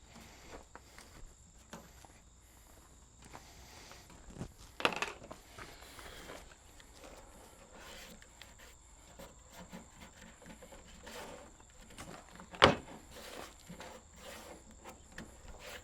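Footsteps and small handling noises of people working around a car, with scattered clicks and two sharper knocks, the loudest about three seconds before the end.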